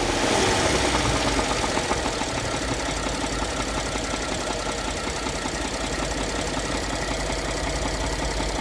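2014 Ford F-150's twin-turbo 3.5 L EcoBoost V6 settling from a rev back to a steady idle, with a fine repeating knock in its running. The owner traces the knock to where the crankcase meets the transmission; it shows up once the engine is warm.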